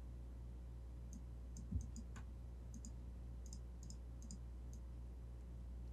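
Computer mouse clicking, a dozen or so light clicks, often in quick pairs, over a steady low hum, with one soft thump about two seconds in.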